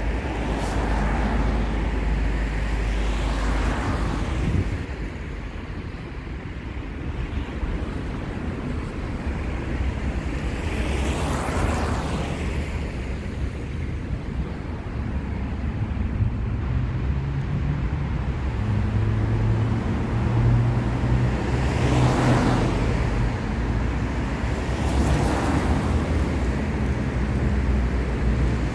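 City street traffic: a steady low rumble with cars passing one after another, each swelling and fading, about five times. A steady low engine hum joins about halfway through.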